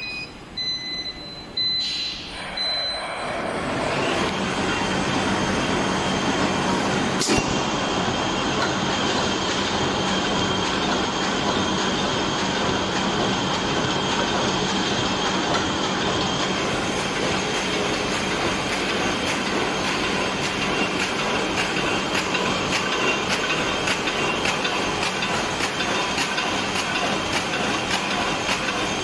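Double-lane paper hamburger-box erecting machine starting up after a few short electronic beeps, getting up to speed within a few seconds and then running steadily with a fast, even mechanical clatter of rapid repeating clicks.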